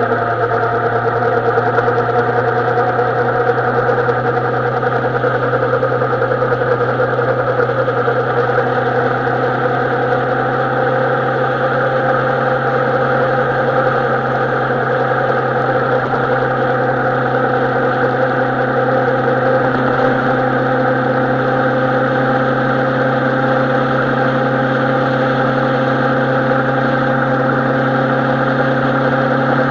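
Suzuki Bandit 650N motorcycle's inline-four engine running at a steady, unchanging speed, with a constant hiss over it.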